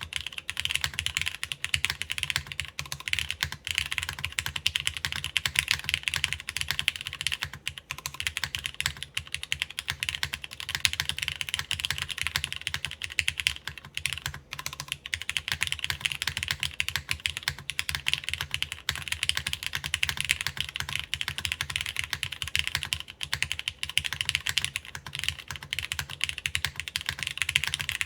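Fast, continuous typing on a top-mounted Plywrks Spyder TKL mechanical keyboard with an aluminium half plate, lubed Cherry MX Black clear-top (Nixie) linear switches and GMK keycaps, with no foam. Keystrokes come in a dense, even stream, with a brief pause near the middle.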